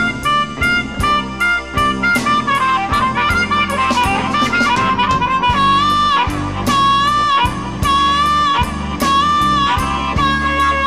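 Electric Chicago blues band playing an instrumental passage. A lead wind instrument holds and bends long notes over electric guitar, bass and a steady drum beat.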